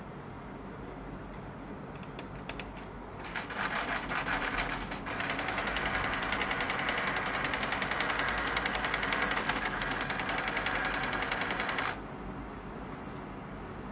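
HP LaserJet Enterprise M506 laser printer making a fast, rattling mechanical grind. It starts faintly, grows louder, runs steadily, then stops abruptly. The grinding comes from a faulty paper feed drive assembly.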